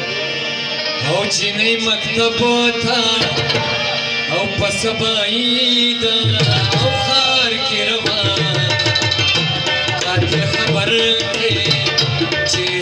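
Pashto folk music: rabab and hand-drummed percussion playing a steady beat under a sung melody.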